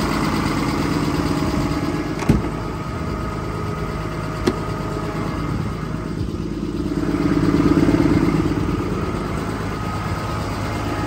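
Cummins 6.7 diesel engine of a Ford F750 truck running steadily, with two sharp clicks at about two and four and a half seconds in, and getting louder for a moment around eight seconds in.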